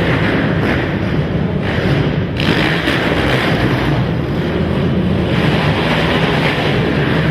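Several racing quad (ATV) engines running hard together, loud and continuous, their higher engine note fading and returning.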